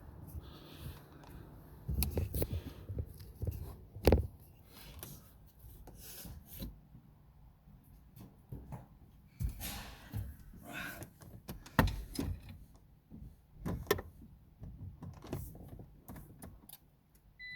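Scattered handling noises, irregular clicks and knocks with some rubbing, and no engine running.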